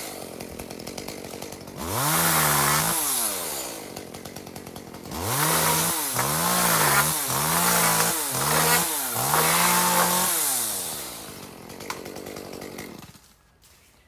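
Two-stroke chainsaw revved up and down in repeated throttle bursts, with a run of quick blips in the middle, then dropping to idle and cutting off about a second before the end.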